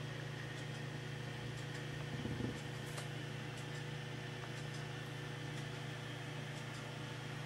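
A steady low hum over a faint hiss, with one brief low thump a little after two seconds in.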